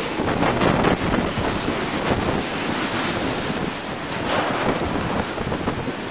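Category 4 Hurricane Charley's eyewall wind blowing at full force and buffeting the microphone, rising and falling in gusts, the back half of the eyewall just after the wind has shifted 180 degrees.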